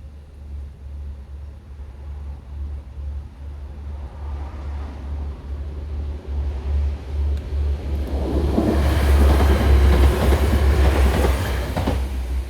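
Class 165 diesel multiple unit approaching and passing the level crossing: the sound builds over several seconds, is loudest for about four seconds near the end, then starts to fall away.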